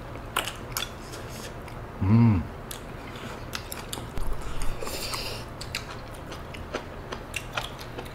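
Close-up eating sounds of mala tang: chewing and biting with scattered short clicks. There is one short voiced sound about two seconds in and a brief hissing slurp-like sound around five seconds.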